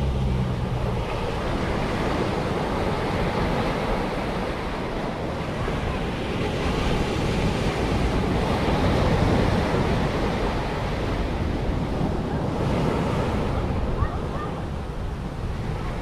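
Ocean surf breaking and washing up a sandy beach, with wind buffeting the microphone. The wash swells louder about halfway through, then eases.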